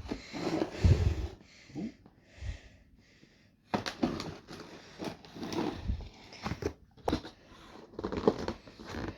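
A new laptop's packaging being handled and opened, with rustling and scraping, strongest in the first second and a half, and several sharp clicks and knocks later on.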